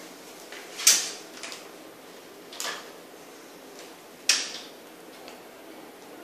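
Marking strokes on drywall while tracing the layout of a wall plate: three short, sharp scratches about two seconds apart, with a few fainter ones between.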